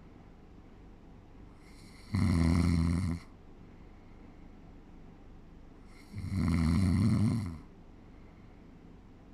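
A person snoring in sleep: two low-pitched snores about four seconds apart, each lasting about a second.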